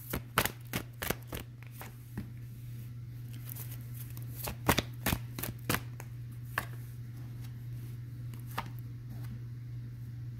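Tarot cards being shuffled and laid out. There is a run of quick, sharp card snaps at the start, another cluster about halfway through, then a few single taps, all over a steady low hum.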